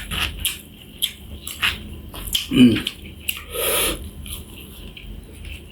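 A person eating close to the microphone: wet chewing and sharp mouth and food clicks, with a short voiced hum about two and a half seconds in and a louder sucking burst just before the four-second mark.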